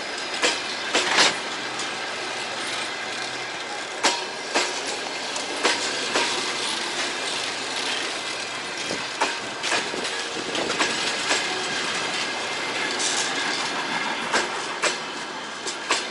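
Train cars rolling past on the track, wheels clacking sharply over the rail joints in irregular pairs over the steady running noise of the train.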